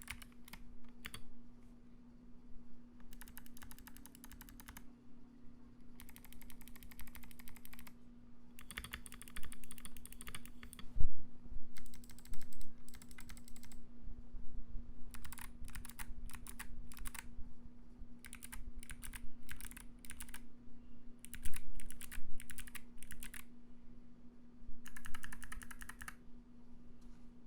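Typing on a Royal Kludge RK68 mechanical keyboard with Kailh Box White clicky switches, foam- and tape-modded: bursts of sharp clicks with short pauses between them, and one much heavier keystroke about eleven seconds in.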